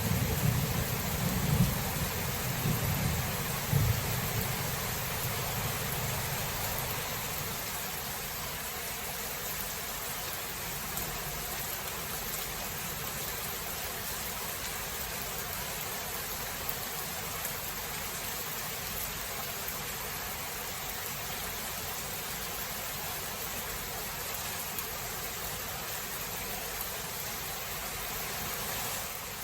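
Thunderstorm: a low rumble of thunder dies away over the first several seconds, leaving steady, heavy rain hiss.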